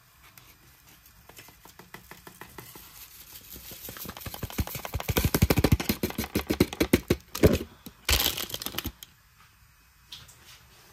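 Foil sachet crinkling and rustling as powdered drink mix is shaken out of it into a ceramic mug: a quick patter of crinkles that builds, is loudest between about five and nine seconds in, then stops.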